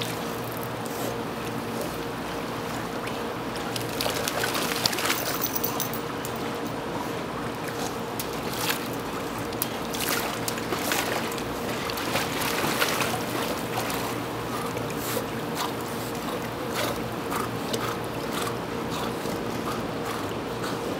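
Pool water splashing and sloshing as golden retrievers swim and paddle, with short splashes every few seconds over a steady hum.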